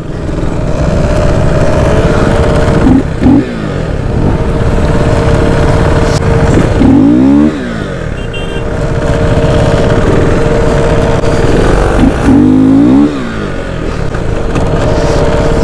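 Motorcycle engines running at low speed as the bikes are ridden into a line, with the revs rising and falling three times: a few seconds in, about halfway, and about three quarters of the way through.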